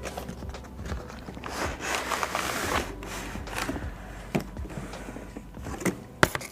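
Cardboard shipping box being handled and opened by hand: rustling, scraping and sliding of cardboard and packing, swelling about two seconds in, with a few sharp knocks near the end.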